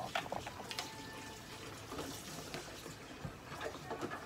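Running, splashing water with scattered small clicks.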